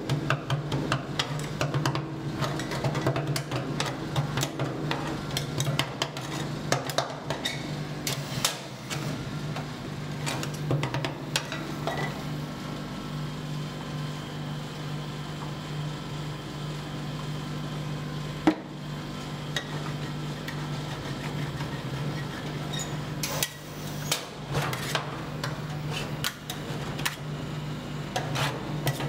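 Metal spatulas chopping and scraping on the steel plate of a rolled-ice-cream cold plate: rapid clacks that thin out in the middle and pick up again near the end, over a steady low hum.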